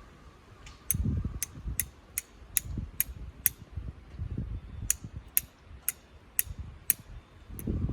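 A fire striker struck repeatedly to throw sparks, sharp metallic scrapes at about two and a half a second: seven strikes, a short pause, then six more. Low rustling and handling noise sits underneath.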